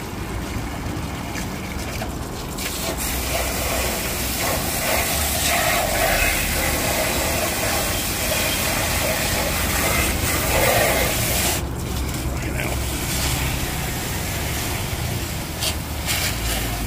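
Garden hose jet, partly pinched with a thumb, spraying water into a vehicle's wheel arch and behind the inner guard panel, splashing against the panel and mud to flush out built-up soil. The spray noise is steady, louder through the middle, and dips briefly about twelve seconds in.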